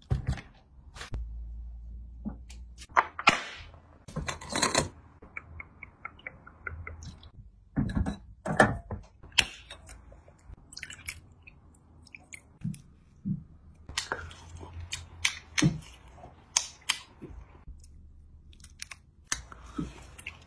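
Close-miked eating of grilled fish: chewing, biting and lip smacks, with sharp clicks and knocks scattered throughout.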